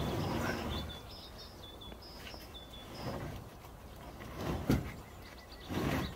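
Large OSB sheets being slid and set down on the wooden beams of a trailer frame: a scraping rush at the start, a sharp wooden knock a little under five seconds in, and more scraping near the end. A bird chirps repeatedly in the background during the first half.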